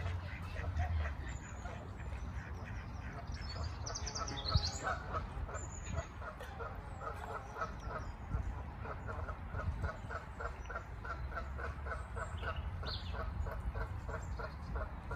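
Waterfowl calling, geese or ducks giving repeated honking calls that settle into a rapid series of about three or four a second in the second half. A few high thin chirps from small birds come in over them.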